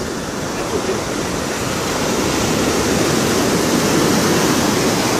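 Ocean surf breaking and washing up the beach: a steady rushing noise that swells a little louder in the second half.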